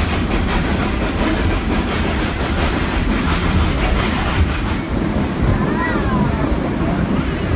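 Narrow-gauge train rolling along the track, heard from an open passenger car: a steady rumble with wheel clatter.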